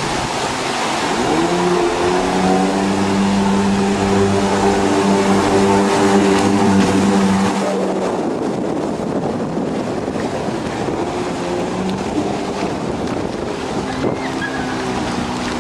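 Jet ski engine running at a steady pitch as the watercraft speeds past, then fading abruptly about eight seconds in as it heads away, leaving a noisy hiss.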